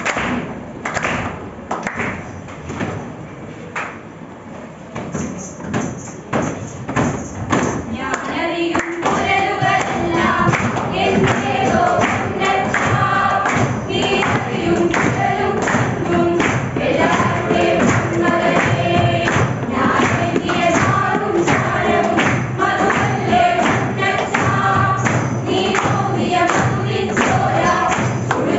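A group of young people singing together, with rhythmic hand-clapping and thumps keeping the beat. The first several seconds are mostly claps and scattered voices, and the singing swells into a full group song about eight seconds in.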